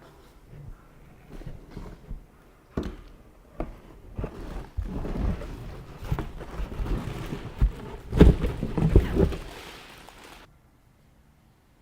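Handling noise from hard objects: scattered clicks and knocks with rustling between them, busiest about eight seconds in, then it cuts off suddenly near the end.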